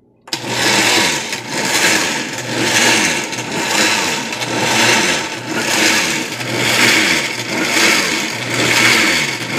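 Oster countertop blender switched on about a third of a second in, its motor running at full speed puréeing a wet vegetable mixture. The sound swells and dips about once a second as the contents churn in the jar.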